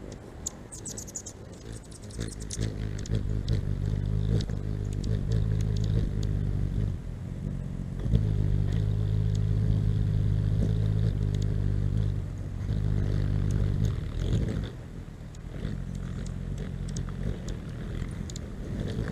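Hummingbird wings humming as a bird hovers close by: a low buzzing hum that swells about two seconds in, holds steady through the middle, then weakens near the end. A few high chip calls come near the start.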